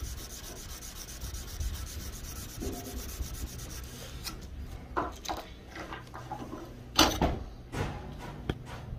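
Steel knife blade being hand-sanded with an abrasive block: quick, even rubbing strokes at first, then slower, uneven strokes with a few louder scrapes, the loudest about seven seconds in.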